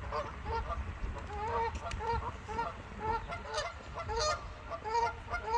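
Geese honking: a steady run of short honks, about two a second, from one or more birds.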